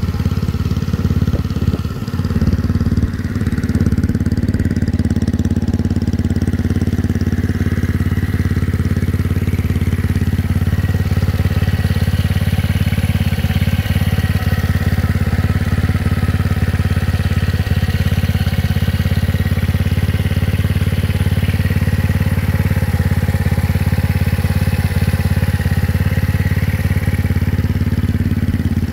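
GY6 single-cylinder four-stroke scooter engine in a Honda Ruckus, running steadily at idle with an even, unchanging tone.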